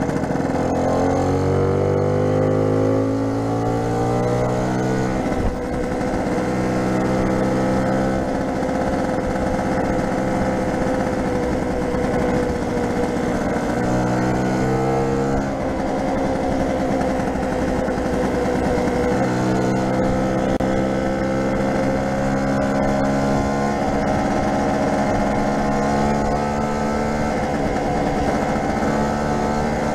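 Lambretta SX200 scooter's single-cylinder two-stroke engine pulling up through the gears under way: its pitch climbs for the first five seconds, drops at a gear change, climbs again around fourteen seconds in and drops at the next change, then holds a steady cruise.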